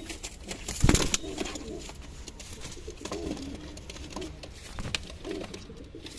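Several domestic pigeons giving low, rolling courtship coos over and over, with a loud sudden thump about a second in.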